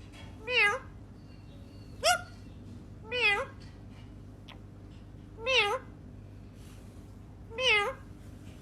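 A pet parrot mimicking a cat's meow: five short, wavering meows a second or two apart, the one about two seconds in shorter and sharply rising.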